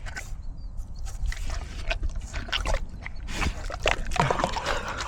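A pig chewing a mouthful of spaghetti, making an irregular run of short, wet smacking sounds.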